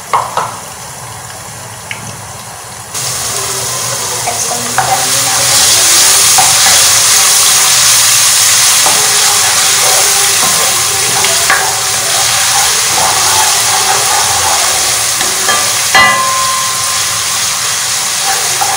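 Ginger-garlic paste frying in oil with fried onions in a nonstick wok, sizzling as it is cooked until lightly browned. The sizzle is muffled under a glass lid at first, then turns much louder about three seconds in once the wok is uncovered. A spatula stirs it with a few clinks against the pan.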